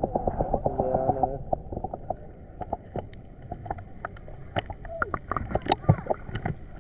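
Shallow rock-pool water splashing and sloshing as someone wades in it, with many small sharp plinks and drips scattered through it.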